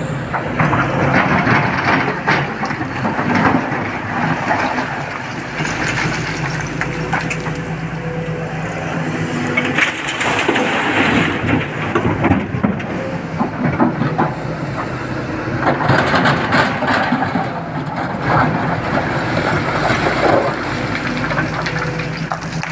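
Excavator's diesel engine running with a steady hum, while rock and earth scrape and crash in repeated rough stretches, as a bucket digs and loads.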